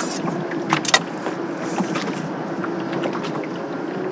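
Steady mechanical hum of a motor on a fishing boat, with a few short sharp clicks and knocks about a second in.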